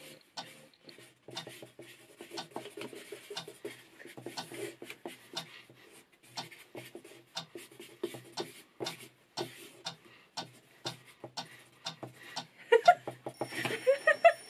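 Rapid, irregular scratches and taps of a pen drawing on paper. A voice rises in pitch near the end.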